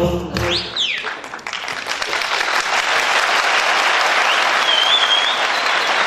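Music ends about a second in, and a theatre audience breaks into sustained applause, with a short high whistle through the clapping near the end.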